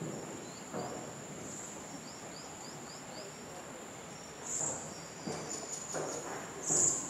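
Rainforest insect chorus: a steady high-pitched drone that swells louder twice, about halfway through and near the end. Over it comes a run of short, quick falling chirps, about five a second, along with a few soft, brief lower sounds.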